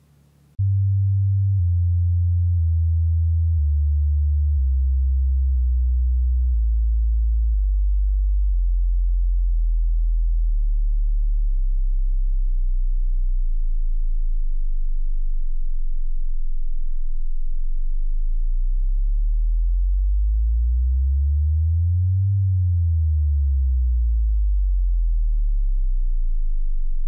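Deep electronic sine tone, loud and steady: it steps down in pitch over the first several seconds to a very low hum, holds there, then glides up and back down again about two-thirds of the way through.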